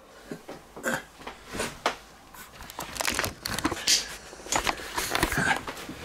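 Irregular rustling, crinkling and knocks of handling noise close to the microphone as the camera is picked up and moved.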